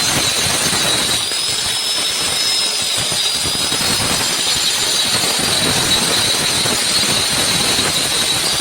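MIG welder arc running steadily with a continuous dense crackle, and a faint high whine from about a second in.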